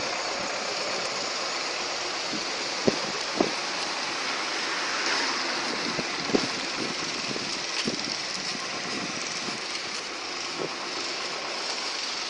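Steady hissing noise with a few short, soft thumps scattered through it.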